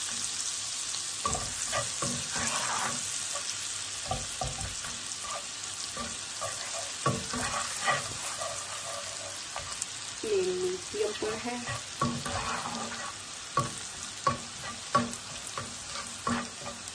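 Chopped onion sizzling steadily in hot butter and oil in a frying pan, with the irregular scrapes and taps of a spatula stirring it against the pan.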